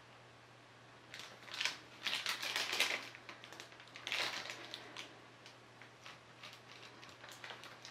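Bursts of dense crackling handling noise, about a second in and again around four seconds, followed by scattered light clicks.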